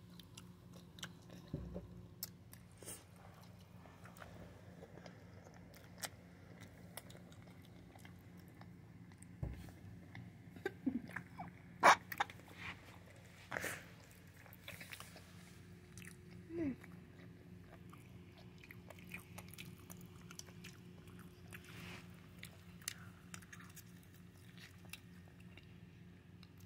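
Someone chewing and biting into a cheeseburger close to the microphone: faint wet mouth sounds and scattered small clicks and taps over a steady low hum, with one sharp tap about twelve seconds in.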